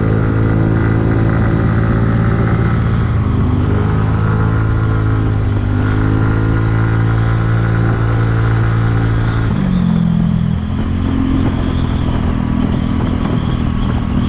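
Kymco People 250 scooter's single-cylinder four-stroke engine running under way, with its exhaust leaks patched with high-heat JB Weld epoxy. The engine note holds steady, then drops to a lower steady pitch about two-thirds of the way through.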